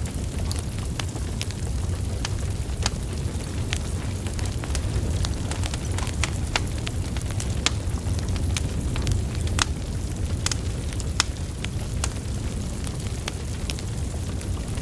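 Wood fire burning: logs crackling with frequent sharp, irregular pops over a steady low rumble of the flames.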